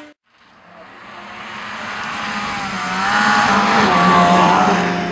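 Racing snowmobile's two-stroke engine revving hard as the sled comes on, growing steadily louder to a peak about three to four seconds in, its pitch dipping and climbing with the throttle.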